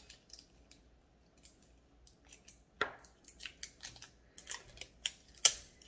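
Small clicks and crinkles from a plastic winged-eyeliner-and-stamp pen and its packaging being handled. They are sparse at first and come thicker in the second half.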